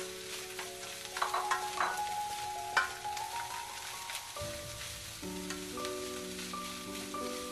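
Red rice and corn sizzling in a nonstick wok while a spatula stirs and scrapes through it, with a sharper knock of the spatula nearly three seconds in. Soft background music with held notes plays along.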